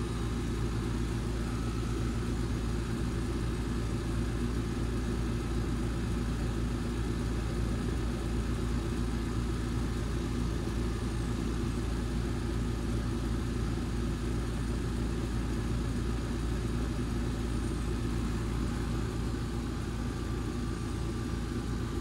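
Trane 4-ton central air conditioner condensing unit running steadily: a compressor hum under the whoosh of the condenser fan blowing out hot air.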